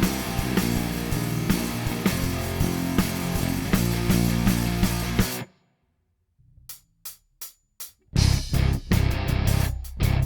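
Lakland Skyline 55-02 five-string electric bass being played in a music passage with strong, sustained low notes. The passage stops about five seconds in. After a second of silence come four short evenly spaced clicks, and then a new passage begins with punchy, percussive attacks.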